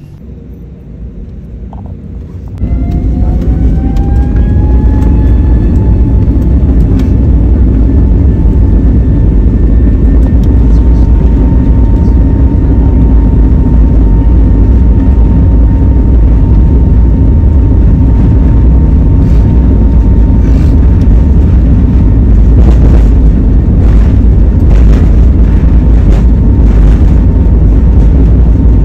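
Jet airliner's engines spooling up for the takeoff roll, heard from inside the cabin. A sudden loud rumble starts a few seconds in, with a whine that rises for a few seconds and then holds steady over the roar.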